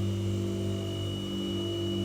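White noise sound machine running: a steady low electric hum with a thin high whine over a soft hiss, unchanging throughout.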